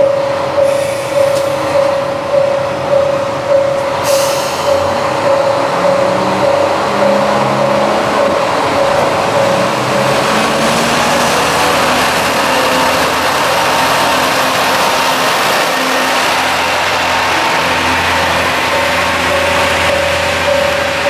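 Kanto Railway KiHa 2203 and 2403 diesel railcars pulling out of a station. A hiss of air about four seconds in is followed by the engines rising in pitch as they throttle up, then running steadily as the train moves off. A repeating ding, about two a second, sounds throughout and is loudest at the start and near the end.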